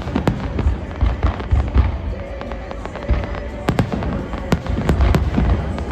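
Fireworks display going off: a rapid, irregular series of sharp bangs and crackles over a low booming rumble, with music playing faintly underneath.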